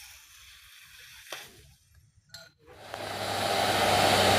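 Two faint clicks and a brief dropout, then a vehicle engine's steady low hum and running noise rising over the last second and a half.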